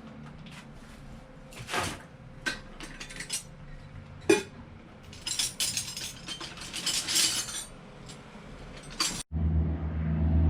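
Small metal objects clinking and rattling in scattered bursts, with a few sharp clicks and a busier run of clinks in the middle. Near the end the sound cuts out abruptly and a steady low hum takes over.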